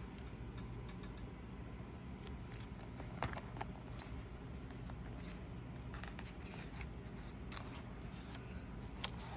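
Pages of a B6 Stalogy notebook being handled and turned by hand: a few short, crisp paper flicks and taps over a steady low background hiss.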